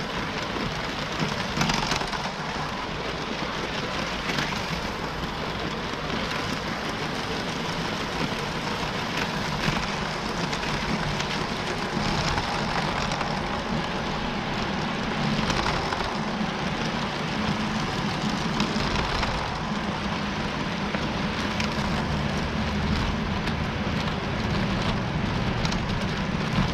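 Lego train running along plastic Lego track: a steady rattle of the wheels on the plastic rails over the hum of its small electric motor, heard close, with an occasional louder click.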